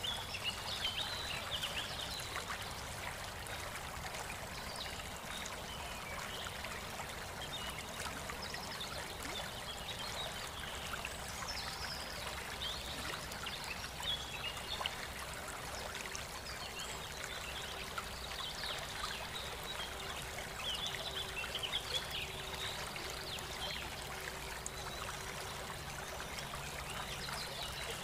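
Steady thin stream of water trickling and splashing from a battery-powered mini water pump's pipe into a small cement tank, with water running out of the tank's outlet pipe.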